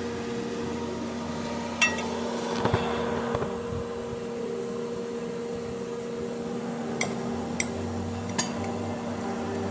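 Metal cooking utensils clinking against the grill five or so times, sharp and brief, over a steady electric hum.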